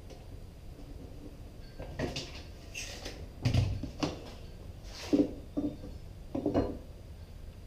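A string of wooden knocks and bumps as cedar boards are shifted and set into place inside a wooden box on a workbench, starting about two seconds in.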